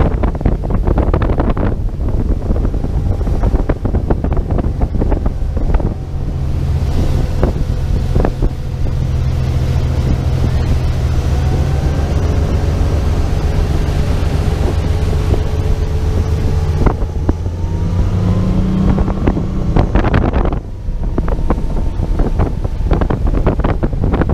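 Motorboat under way: a steady low engine drone beneath heavy wind buffeting on the microphone. The engine note rises about three-quarters of the way through, then wind noise takes over again near the end.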